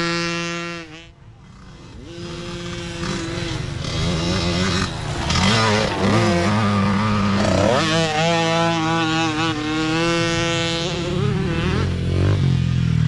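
Mini dirt bike engines racing, revving up and down as the riders work the throttle. The sound drops away about a second in, then builds again as another bike comes closer and grows loud.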